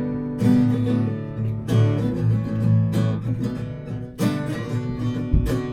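Acoustic guitar strummed in an instrumental passage of a song, with a strong chord stroke about every second and a bit.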